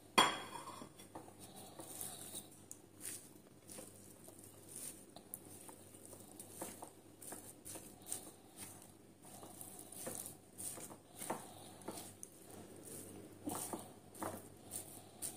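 Spatula stirring and folding a mixture of corned beef with minced carrot, onion and garlic in a bowl: soft, irregular scraping and pattering strokes, with one sharp knock at the very start.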